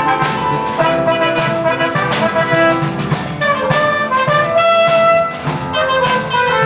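Instrumental music with brass and drums: held melody notes over a steady beat.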